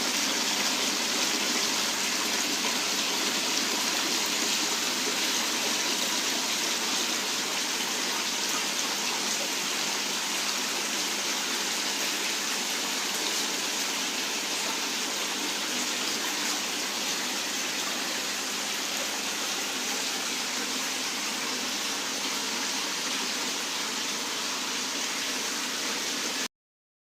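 Water falling steadily over an artificial decorative waterfall, a constant splashing rush; it stops abruptly near the end.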